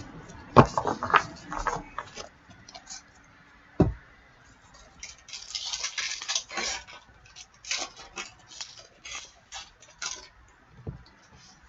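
Hands handling trading cards and foil card-pack wrappers: scattered taps and clicks, a sharp knock about four seconds in, and crinkling wrapper rustle about five to seven seconds in.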